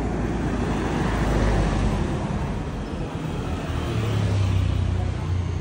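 Motor vehicle engines and road noise: a steady low hum under a rushing haze, with one engine note swelling louder about four seconds in.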